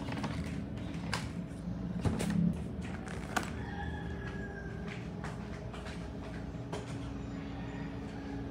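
Indoor handling sounds: a few light clicks and knocks, spaced irregularly, over a steady low hum.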